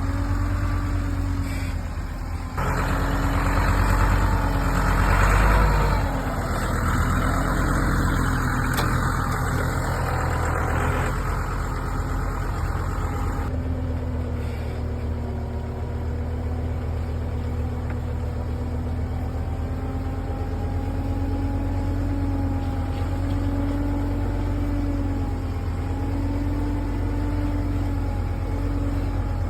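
Diesel engine of a heavy forestry machine running steadily, its pitch wavering slightly. From about two and a half seconds in to about thirteen and a half, a louder, noisier sound joins it, starting and stopping abruptly.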